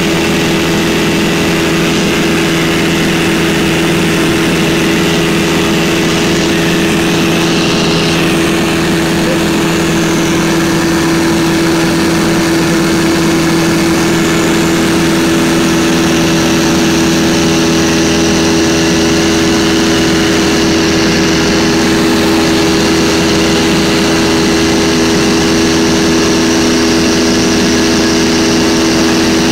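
1946 Stinson 108's piston engine and propeller droning steadily in flight, heard from inside the cabin.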